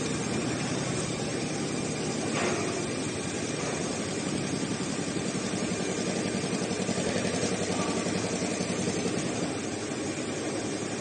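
Richpeace CNC heating-wire sewing machine running, its sewing head stitching at a fast, even rate over a steady mechanical hum. A single brief click about two and a half seconds in.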